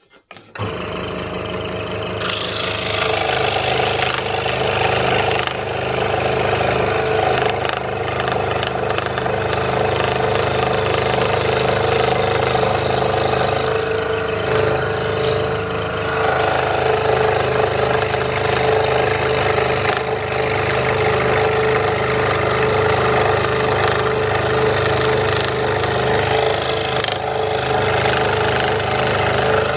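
Electric scroll saw running steadily with a steady hum, its reciprocating blade cutting a wooden board fed by hand; the rasp of the cut grows from about two seconds in.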